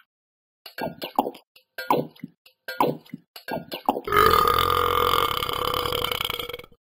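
A person burping: a quick run of about five short burps, then one long, loud drawn-out burp lasting about two and a half seconds that cuts off suddenly.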